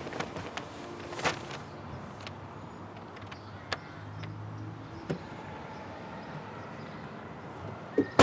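Light rustling and small knocks as a paper bag is handled in a car's open trunk, then a loud slam of the car being shut near the end.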